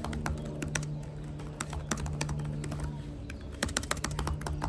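Typing on the Samsung Galaxy Book4 Edge's laptop keyboard: quick, irregular key clicks, with background music underneath.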